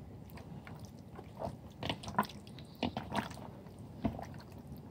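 Raw chicken wings being rubbed and turned by hand in peri peri sauce to marinate them: a series of short, irregular wet squelches.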